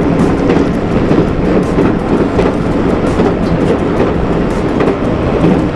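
A train running on the rails: a steady, loud rumble with occasional clicks from the wheels and track.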